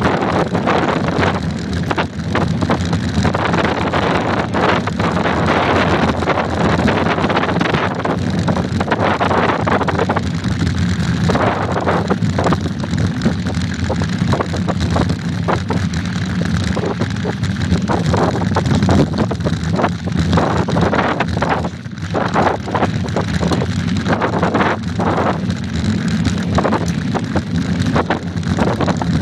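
Wind rumbling on the microphone of a bike-mounted phone as a mountain bike rides a rough dirt road, with frequent knocks and rattles as the bike jolts over the ruts and gravel.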